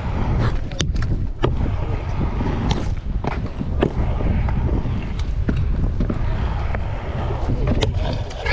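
Stunt scooter riding on skatepark concrete: a steady low rumble of the wheels rolling, with scattered sharp clicks and knocks from the scooter.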